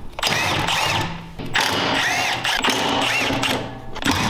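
Milwaukee Fuel cordless power driver with a 5 mm hex bit running in about four short bursts, its motor whining up and down as it backs out Allen bolts.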